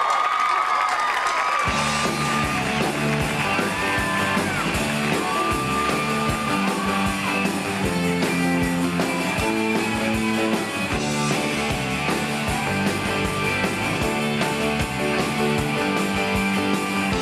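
Live rock band playing a song's instrumental intro: electric guitars, drum kit, bass and keyboard. Held guitar notes open it, and the bass and drums come in with a steady beat about two seconds in.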